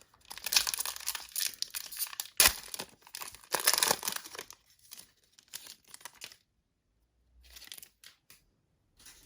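Wrapper of a trading card pack being torn open and crinkled, with the loudest rips about two and a half and four seconds in. It stops about six seconds in, leaving a few faint rustles.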